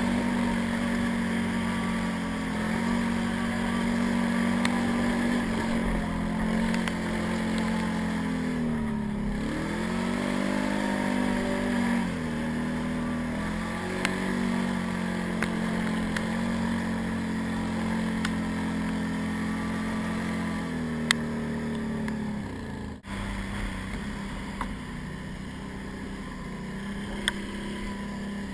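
Can-Am 800 ATV's V-twin engine running while riding, its pitch dipping and climbing back about a third of the way in as the throttle is eased off and opened again. Occasional sharp clicks sound over it.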